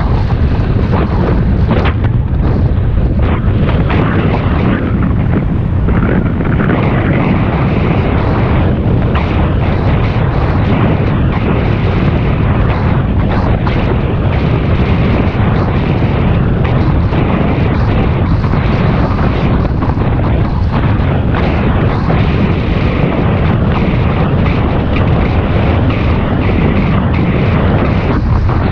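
Wind buffeting the microphone of a camera riding along on a moving bicycle: a loud, steady, deep rumble.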